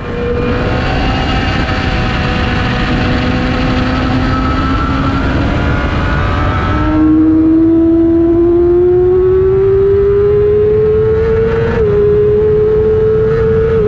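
Sport motorcycle engine at high revs, heard from an onboard camera, its pitch climbing slowly under acceleration. Wind rush over the microphone fills the first half and stops abruptly about halfway through. There is a brief dip in pitch near the end.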